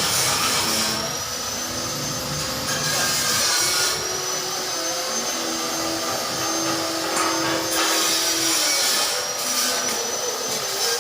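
A power tool's motor running steadily with a high whine that rises in pitch about a second in and again about four seconds in, as if spinning up.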